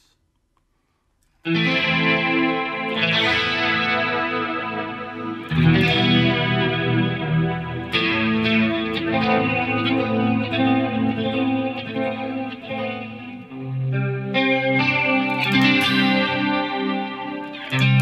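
Clean Stratocaster-style electric guitar chords played through the BIAS FX amp simulator with a chorus effect on, the chords ringing and overlapping. The playing starts about a second and a half in, with new chords struck every couple of seconds.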